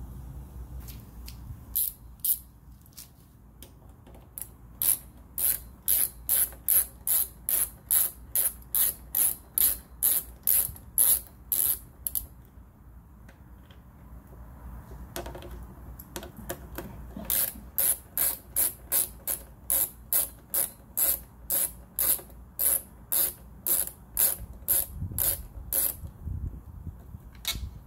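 Ratcheting T25 Torx driver clicking at about three clicks a second as windscreen screws are backed out. The clicking comes in two long runs with a pause of a few seconds between them.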